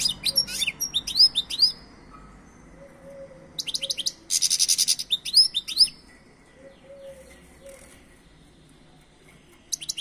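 European goldfinch singing: quick runs of twittering, sweeping notes in two bursts, the second starting about three and a half seconds in with a buzzy trill in its middle. It is quieter for a few seconds before a brief chirp near the end.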